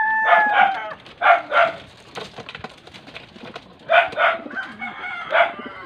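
A rooster's long crow trails off about a second in. It is followed by three groups of short barks, mostly in pairs, from a dog.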